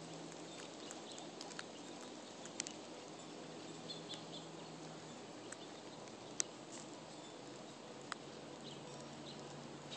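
Guinea pigs grazing, faintly cropping and chewing grass, with a few sharp clicks over a steady hiss.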